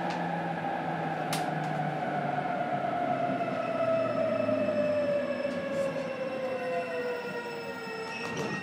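Running sound inside a JR Kyushu 817 series 3000-subseries electric train's motor car. The Hitachi IGBT VVVF inverter and traction motors whine in several tones that fall steadily in pitch as the train slows, over rumbling wheel and track noise with a few clicks.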